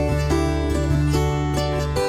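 Background music led by a plucked acoustic guitar over a steady bass line.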